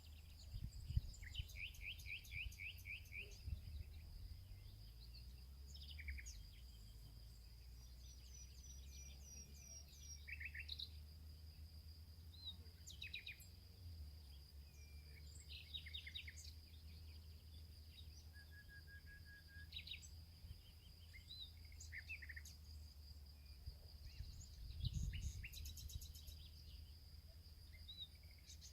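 Songbirds calling and trilling in a spring forest, many short chirps and trills coming and going throughout. Underneath runs a steady high-pitched tone and a low rumble that swells briefly near the start and again near the end.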